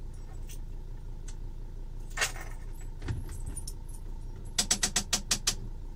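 Camper van engine idling with a low steady rumble in the cab, and about four and a half seconds in a quick run of about eight sharp metallic clicks.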